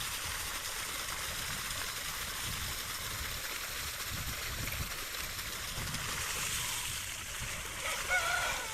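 A steady rushing hiss, like running water. Near the end, a farm animal starts a wavering call.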